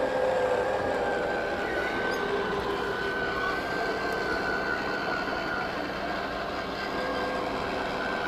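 Lippert Schwintek in-wall RV slide-out motors running with a steady whine as the slide room extends evenly on its rails.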